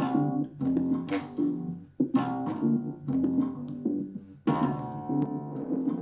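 Guitar music with bass played through a small portable Bluetooth speaker, first the JBL Go 2. About four and a half seconds in, the same music starts again on the Sony SRS-X11.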